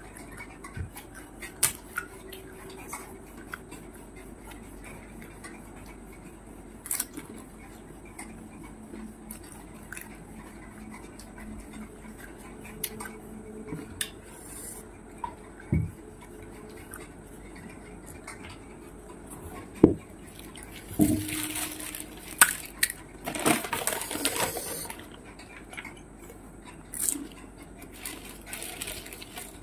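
Close-up eating sounds of panipuri: scattered crunches and clicks as the crisp puris are bitten and chewed, with occasional light clinks of a dish. About three quarters of the way through there is a denser stretch of crunching noise.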